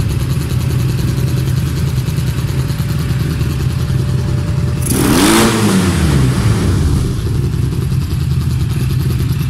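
Freshly rebuilt 1991 Yamaha XTZ750 Super Ténéré parallel-twin engine idling steadily on its first start, with one quick throttle blip about five seconds in that rises and falls in pitch.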